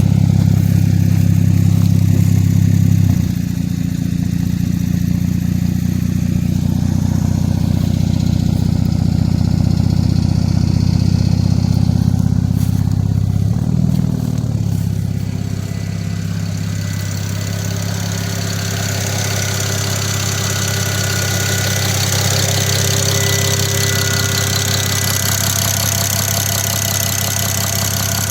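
2008 BMW 335i's twin-turbo straight-six engine running at idle, on a car with a faulty turbocharger. The engine is louder for the first three seconds, then settles, with a short rise in revs about halfway through. In the second half a high hiss and a thin steady whine come in over it.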